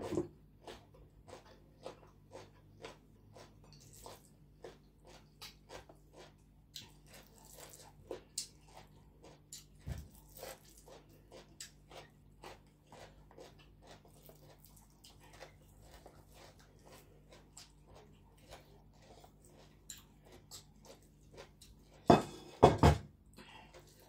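A person chewing and biting food with steady crunchy, wet mouth clicks, about two a second. Near the end come two loud knocks.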